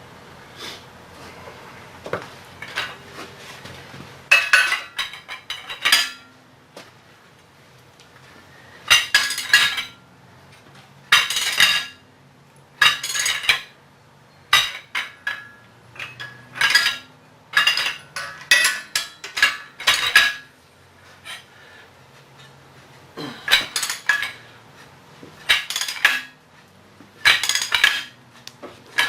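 Hammer blows on steel, coming in quick groups of ringing metallic strikes every second or two, while working a stuck jackshaft pulley and flange loose.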